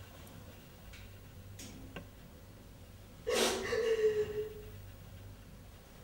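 A woman gagging and retching with her fingers down her throat, forcing herself to vomit: one long, strained retch about three seconds in, with faint breathing around it and another gasping retch starting right at the end.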